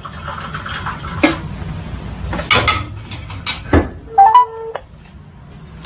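Smartphone on speakerphone placing a call: several taps and handling clicks on the phone, then about four seconds in a short steady ringback-style tone with a brief rising beep over it as the call connects.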